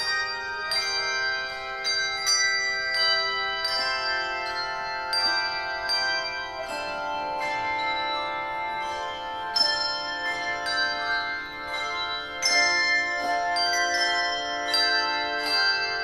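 Handbell choir ringing a hymn: several bronze handbells struck together as chords, a new strike every half second to a second, each note ringing on and overlapping the next.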